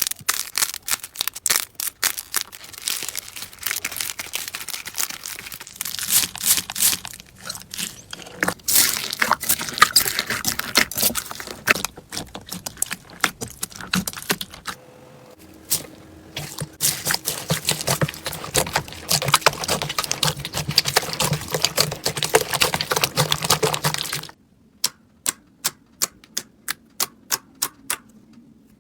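Slime being squeezed and worked by hand, giving dense crackling and popping clicks. Near the end it changes to a run of separate sharp clicks, about three a second.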